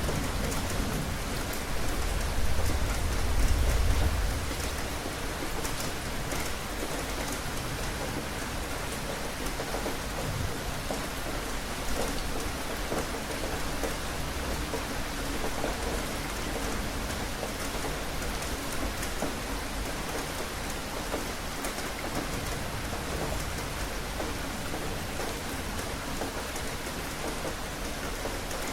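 Steady rain falling on a surface. A low rumble carries the first few seconds and fades out about four seconds in.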